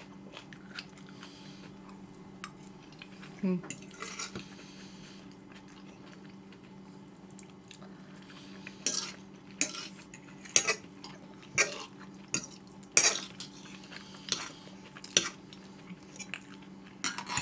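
Forks and spoons clinking and scraping on dinner plates as people eat, in scattered sharp clicks that come more often and louder in the second half.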